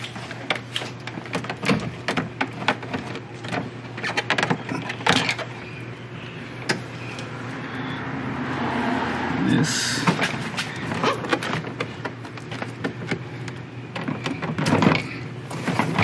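Clicks, knocks and plastic rattles from a Chevy Silverado door trim panel being handled and its wiring connectors unplugged. Midway a rushing noise swells for a few seconds and stops about ten seconds in.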